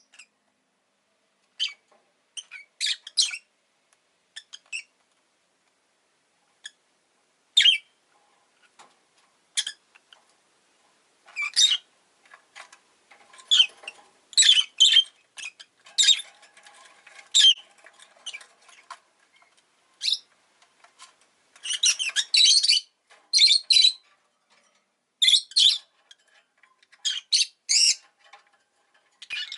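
Rosy-faced lovebird giving short, sharp, high-pitched chirps and squawks at irregular intervals. The calls are sparse at first and come in quicker, louder bursts over the second half.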